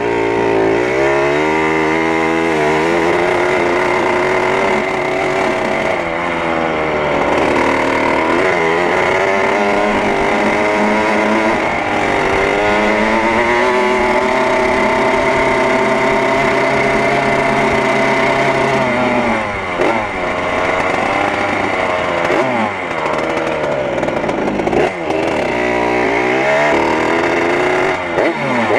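1978 Yamaha YZ80's single-cylinder two-stroke engine, heard from the rider's seat, revving up and down as the dirt bike is ridden through the gears. The pitch climbs and falls again and again, holds fairly steady for several seconds in the middle, then rises and drops in quick blips of the throttle near the end.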